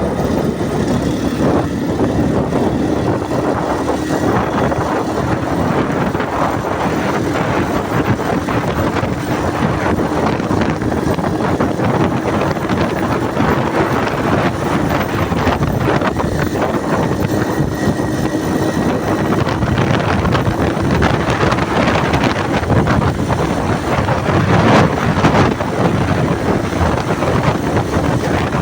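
A vehicle running, with loud wind noise on the microphone over a steady engine drone.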